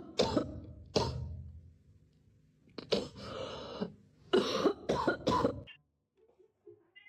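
A series of harsh, cough-like hacks in irregular bursts, the last several coming in quick succession, then dying away about two thirds of the way through.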